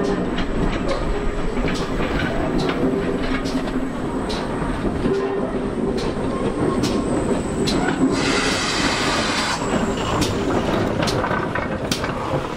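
GWR auto train, pannier tank 6412 coupled between autocoaches, rolling slowly past: a low rumble with irregular clicks of the wheels over rail joints. About eight seconds in, as the locomotive passes, there is a loud hiss lasting about a second and a half.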